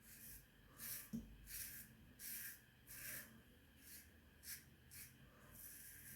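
Faint, short scrapes of a 3D-printed AC-Matic safety razor's Feather AC blade drawn over a stubbled scalp, about eight strokes with brief pauses between. A small knock comes about a second in.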